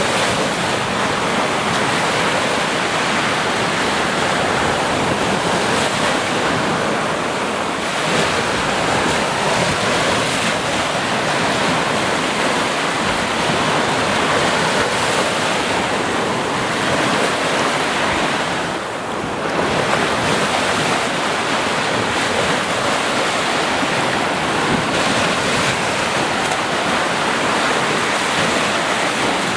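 Sea waves breaking and washing on a beach in a continuous surf wash, with a brief lull about two-thirds of the way through.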